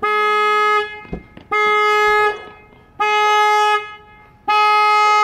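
Car horn sounding in four even blasts, each under a second, about one and a half seconds apart. It is the repeating pattern of a car alarm that has been set off.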